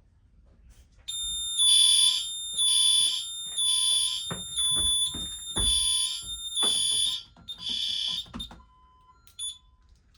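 Alarm system sounding a fire alarm after a manual pull station is pulled: a shrill electronic tone pulsing about once a second. It starts about a second in and stops after about eight and a half seconds, with a few knocks along the way.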